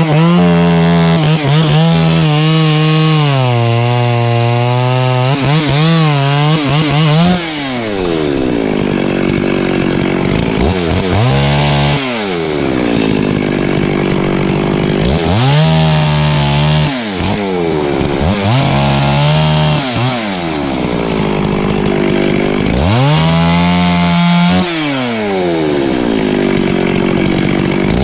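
Chainsaw running at full throttle and cutting wood, its pitch sagging under load. It drops back to idle about seven seconds in, then revs up again for shorter cuts about every four seconds.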